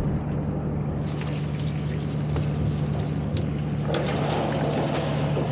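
Stationary engine running steadily with an even, unchanging drone, while light scattered clicks and rattles come and go over it.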